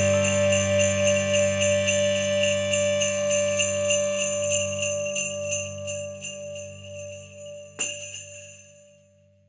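Sleigh bells shaken in a fast, even rhythm over a held final chord, the whole sound fading away to silence as the song ends. A single sharp knock comes about eight seconds in.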